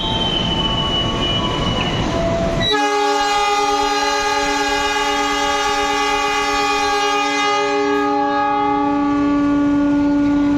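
Train running noise with a thin high tone, then about two and a half seconds in a locomotive's multi-note air horn sounds one long, steady blast that is still going at the end. This is the Semboyan 35 horn signal.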